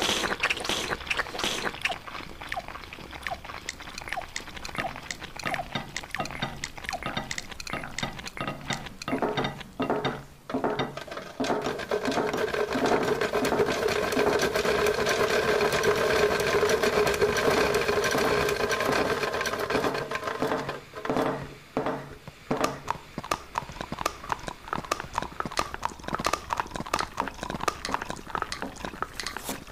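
Many overlapping copies of the same eating soundtrack play on top of one another: a dense clatter of clicks, squelches and chewing sounds from spaghetti and paint being handled and eaten. Through the middle it thickens into a steady wall of sound, then breaks back up into separate clattering.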